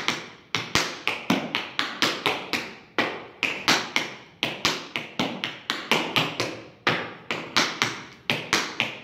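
Tap shoes striking a hard stage floor in a steady rhythm of sharp taps, about four or five a second, bunched in small clusters of two to four, as a tap step is danced through.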